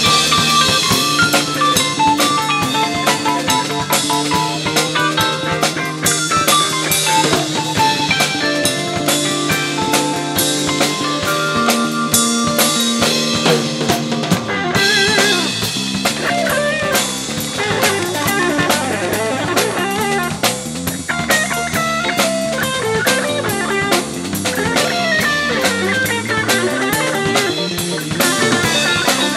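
A jazz-funk fusion band playing live, led by a drum kit with steady cymbal and rimshot hits and an electric guitar. Held chords carry the first half, and from about halfway the playing turns busier, with moving lines.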